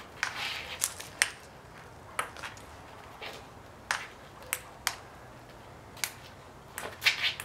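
Celluloid-style ping-pong ball clicking against paddles, the table and the concrete driveway during a rally: a dozen or so sharp, irregular clicks, with a quick cluster of bounces near the end.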